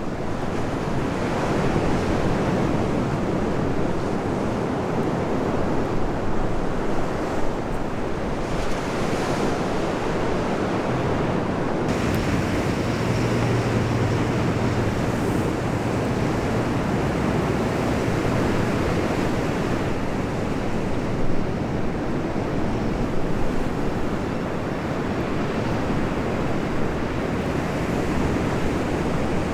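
Sea waves washing on the shore, with wind on the microphone. A low hum joins for a few seconds around the middle.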